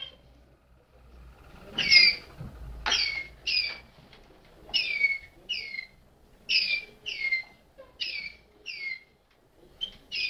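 Malinois (Waterslager) song canary singing: short whistled notes that each fall in pitch, mostly in quick pairs, about one pair every second and a half.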